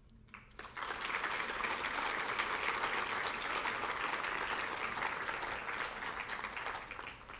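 Audience applauding. Dense clapping starts about a second in and tapers off near the end.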